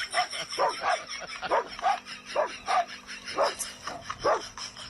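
A dog barking and yipping in a quick series of short, high calls, about two a second.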